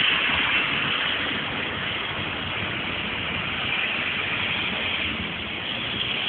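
Steady hiss of background noise with no distinct events.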